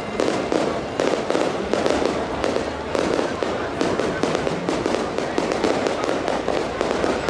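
Fireworks going off in a dense, continuous barrage of rapid bangs and crackles, many bursts a second with no break.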